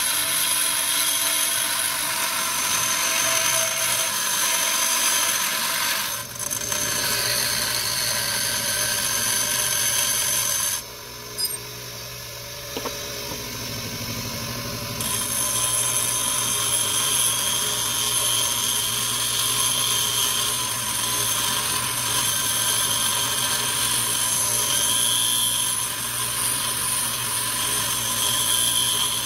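Bench grinder grinding down a metal truck key pressed against the wheel: a steady harsh grinding over the motor's hum. About eleven seconds in the grinding stops for about four seconds while the key is off the wheel, leaving the motor running, then resumes.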